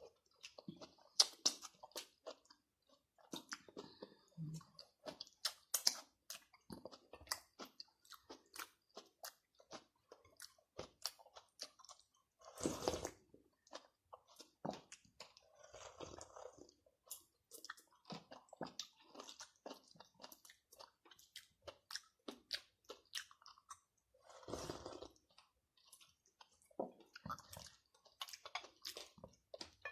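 Chewing and crunching of food: a steady string of short, crisp bites and chews, with two louder, longer bursts, one about halfway and one past three-quarters of the way.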